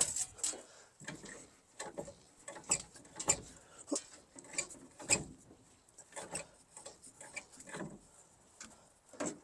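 A run of irregular metallic clicks and knocks, one or two a second, from a master cylinder being worked by hand to force a seized piston out of a Kelsey-Hayes four-piston brake caliper with hydraulic pressure.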